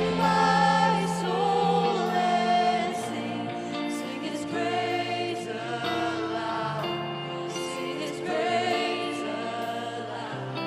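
Choir singing gospel-style music in long held, wavering notes over sustained low accompaniment.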